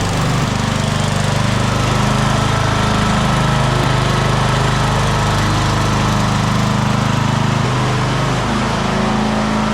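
1985 John Deere 111 riding mower's engine running steadily, its pitch shifting slightly near the end.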